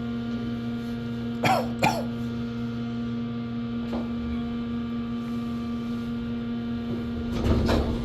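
Otis elevator car humming steadily while riding up, with two brief cough-like sounds about a second and a half in and a low rumble building near the end.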